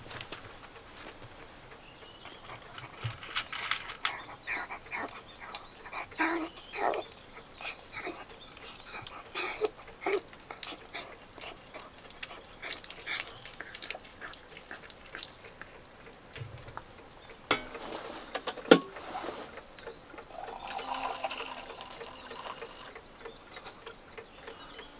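Small dog eating dry kibble from a stainless steel bowl: irregular crunching and clinks of food against the metal, with one sharp, loud knock about three-quarters of the way through.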